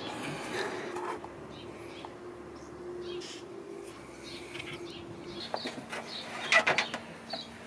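Small birds chirping in the background over a steady faint hum, with a quick cluster of knocks and rattles from handling parts about six and a half seconds in.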